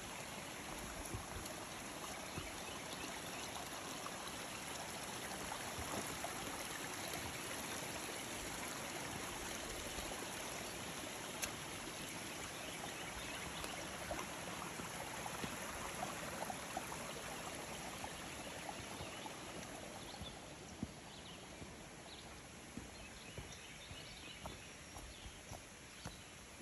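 A mountain stream running steadily, growing a little louder through the middle and fading near the end, with a few faint clicks near the end.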